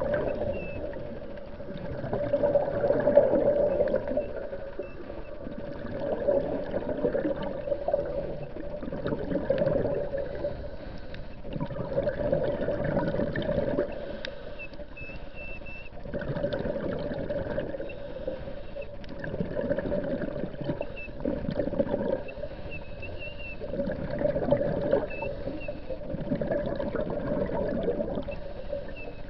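Muffled underwater water noise heard through a camera's waterproof housing, swelling and fading every three to four seconds, with a few faint short high whistles.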